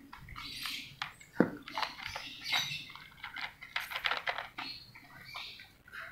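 Angora cat chewing dry kibble from a plastic bowl: irregular crunches and small clicks.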